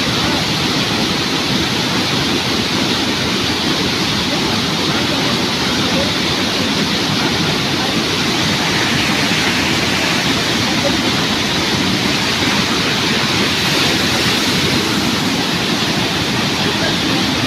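Waterfall in full flow: a loud, steady rush of falling water.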